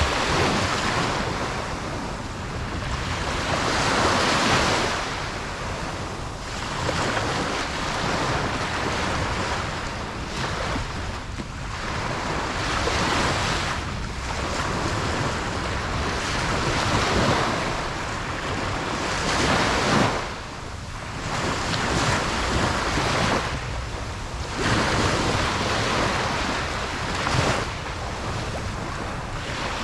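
Ocean waves breaking on a beach, a continuous surf wash that swells and recedes every few seconds.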